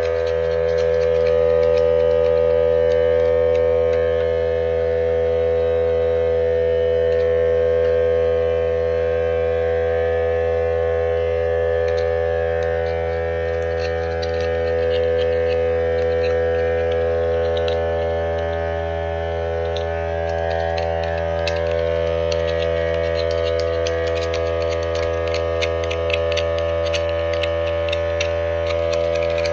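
A loud, steady machine hum made of several held tones, unchanging throughout. In the last third, quick scraping clicks of a hand scraper on the paint of a 5.3 V8 engine block come in and grow denser.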